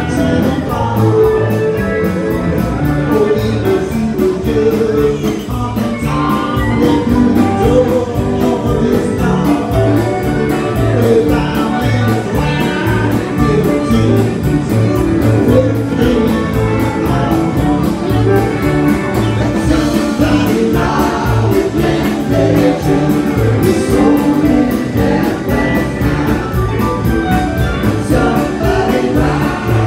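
Live country-rock band playing at full volume: electric guitars, fiddle and drums with a steady cymbal beat, with sung vocals over the band.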